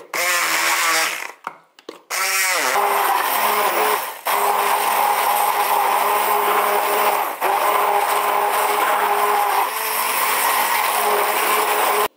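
Stainless-steel immersion blender running in a plastic jug, blending frozen strawberries, banana, oats and kefir into a smoothie. It stops briefly about a second and a half in, restarts with its pitch sagging, then runs steadily until it cuts off at the end.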